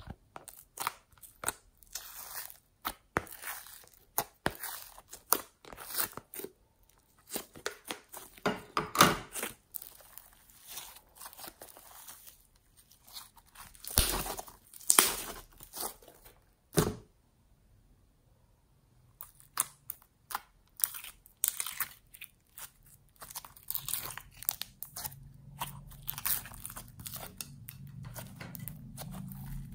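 Slime being squeezed, pressed and pulled by hands: a run of sticky crackles, pops and squelches, with a pause of about two seconds a little past the middle.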